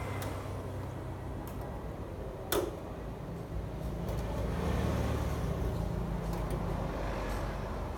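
Steady low background rumble with a faint hum, and one sharp click or tap about two and a half seconds in.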